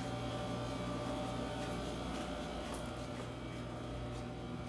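A steady low hum, even throughout, with a few faint ticks.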